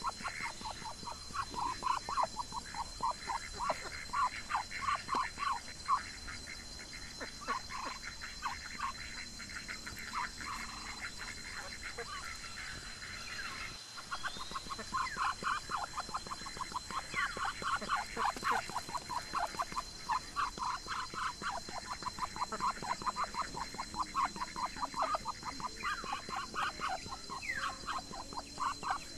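Ducks calling in a rapid series of short, quack-like notes, several a second, that thin out for a couple of seconds before the middle. A steady thin high tone runs behind them.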